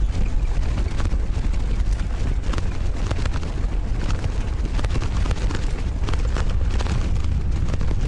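Heavy wind buffeting the microphone of a camera on a moving bicycle: a steady low rumble with scattered clicks and rattles.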